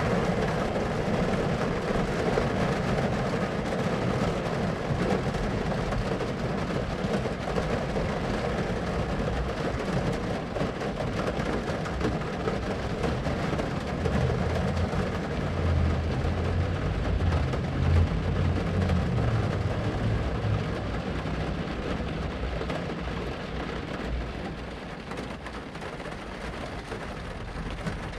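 Thunderstorm: rain falls steadily while thunder rumbles low. The rumble swells in the middle and peaks a little past halfway.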